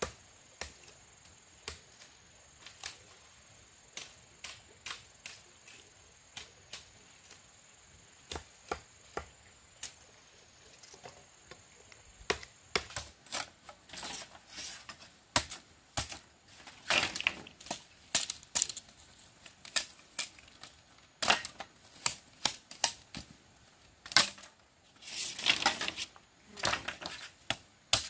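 Machete striking split bamboo strips: sharp, irregular knocks, about one a second at first, then coming quickly in the second half, with a couple of longer rasping stretches.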